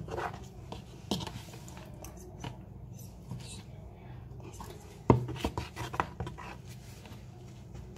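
A metal spoon stirring slime in a bowl: soft scraping with a few knocks of the spoon against the bowl, the loudest about five seconds in, over a steady low hum.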